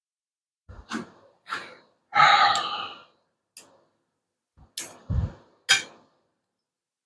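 A man's heavy sigh about two seconds in, among a handful of separate knocks and clicks of hand tools being handled.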